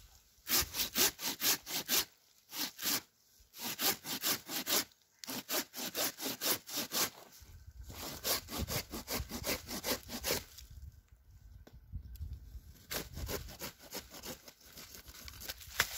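Curved pruning hand saw cutting through a young walnut branch: runs of quick back-and-forth strokes, about four a second, broken by short pauses and a longer pause past the middle.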